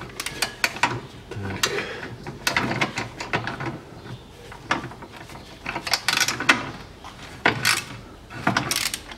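Socket ratchet wrench clicking in short, irregular bursts as it is swung back and forth, unscrewing a plug on the transfer case that has just broken loose.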